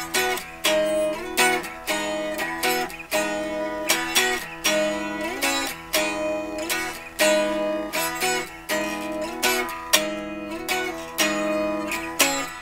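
Twelve-string electric guitar strumming chords in a fast, repeating figure, with a ringing high note that comes back again and again.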